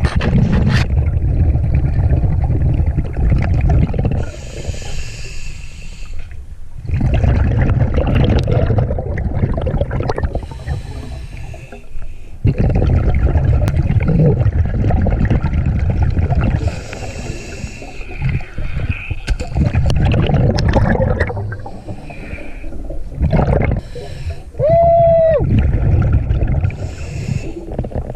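Scuba regulator breathing underwater: several slow breaths, each a long rumbling rush of exhaled bubbles followed by a quieter inhale with a faint hiss from the regulator. A short pitched tone sounds near the end.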